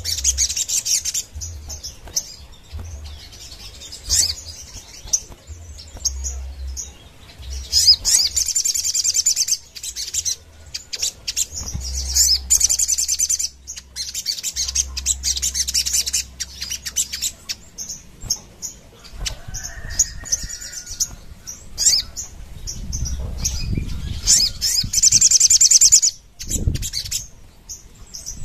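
Sogon, a caged sunbird, singing in bursts of high, very rapid trilling, each phrase a second or two long and repeated after short pauses. Some low thumps and rustling come in near the end.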